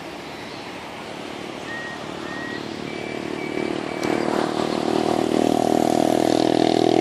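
City traffic ambience, with a motor vehicle's engine approaching and getting steadily louder from about four seconds in. Before that, a few short high-pitched chirps sound over the traffic hum.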